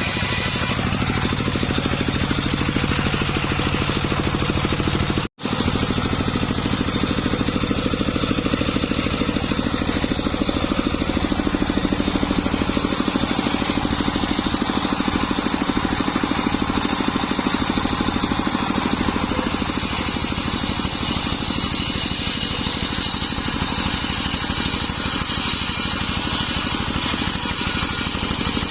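Homemade circular saw rig running steadily while ripping sengon wood into rafters: the steady drone of its motor mixed with the noise of the blade in the wood. The sound drops out for an instant about five seconds in.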